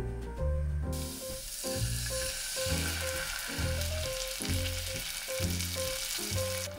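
Oats and garlic sizzling in olive oil in a saucepan as tomato juice is poured in; a steady sizzle that starts about a second in.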